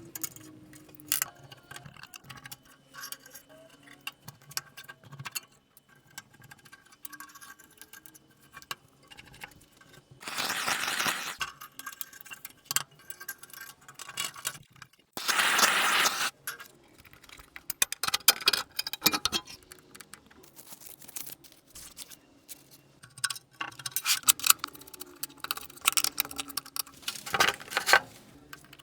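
Small metal parts and tools clinking, clicking and knocking during work on an antique National Cash Register's mechanism, with two bursts of rushing noise, each over a second long, about a third and about halfway through.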